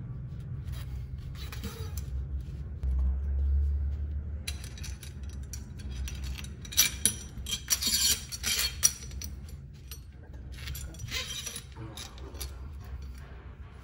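Stainless steel threaded rods, plates and washers being handled and fitted together by hand: scattered metallic clicks and clinks, thickest in the middle, over a low steady hum. A dull low thump about three seconds in.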